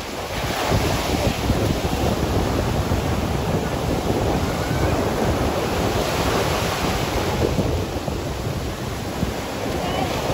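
Sea surf breaking and washing up the beach, a steady rushing noise with a low rumble underneath.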